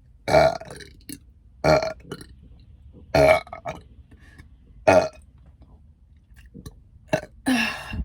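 A woman burping about five times in a row, loud and pitched, the last burp the longest, brought up by carbonated soda.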